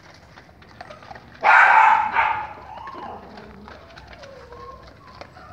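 A dog gives one loud, harsh snarl lasting about a second, starting about one and a half seconds in.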